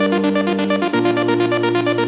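Electronic background music: held synthesizer chords pulsing in a fast, even rhythm, moving to a new chord about halfway through.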